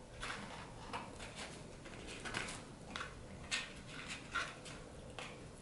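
Soft, irregular rustling and light crackles of hands picking french fries out of a cardboard fry tray.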